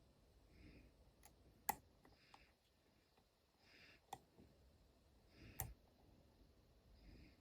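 Faint, sparse clicks of a disc detainer pick turning the discs inside an Abloy Classic cam lock, with three sharper clicks, the loudest about a second and a half in.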